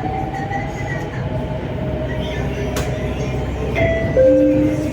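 Metro train running, heard from inside the car: a steady rumble with a thin electric whine over it. The whine's pitch shifts to new steady notes about four seconds in, where the sound is loudest.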